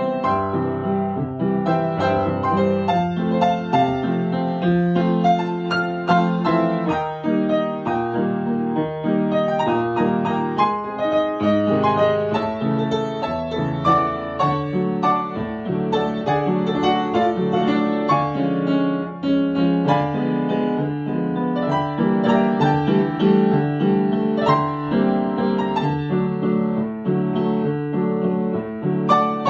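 Solo grand piano playing a Viennese waltz, a continuous stream of melody and chords.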